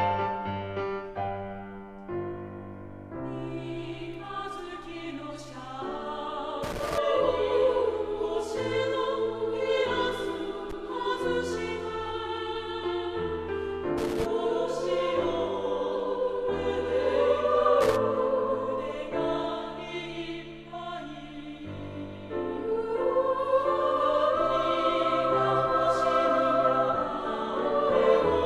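Background music: a women's chorus singing a slow melody in long held notes over a steady low accompaniment, with a few sharp percussive accents.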